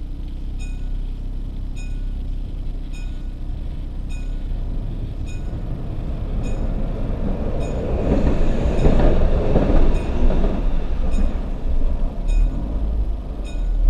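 Level-crossing warning bell dinging about once a second over a low rumble. An electric commuter train passes through the crossing, its noise swelling about eight to eleven seconds in.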